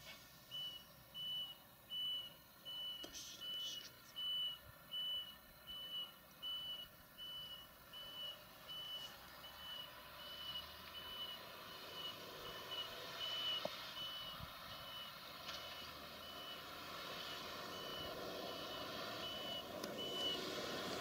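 Reversing alarm on a Holmer Terra Variant 600 ECO self-propelled slurry applicator beeping steadily, about one and a half beeps a second, as the machine moves off after filling. Its diesel engine runs underneath and grows louder through the second half.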